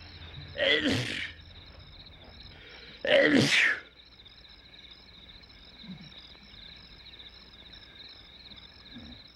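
Two loud, short vocal outbursts from a person, about two and a half seconds apart, each under a second long with a sliding pitch, over steady chirping crickets.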